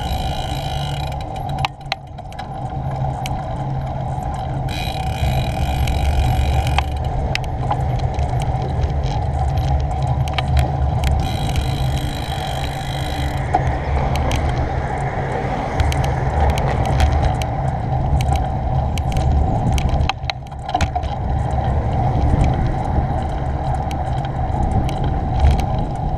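Wind buffeting a GoPro's microphone while cycling along a road, a steady low rumble mixed with tyre noise and many sharp clicks and rattles from the bike over the road surface. A car goes by about halfway through.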